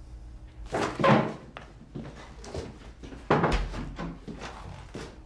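Heavy thuds and knocks with a short ringing tail: a loud one about a second in, another with a deep low rumble just past three seconds, and lighter knocks between.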